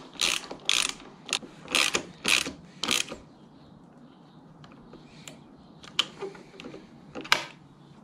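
Socket ratchet wrench clicking as it is swung back and forth, tightening the exhaust hanger bolt: a run of ratcheting strokes about two a second for the first three seconds, then a few single clicks.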